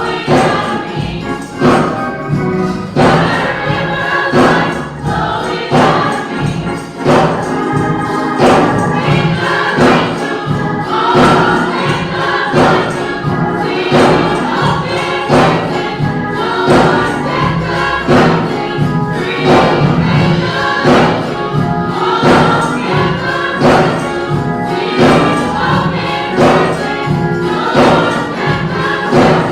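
Gospel choir singing over a band with a steady, driving beat and a tambourine.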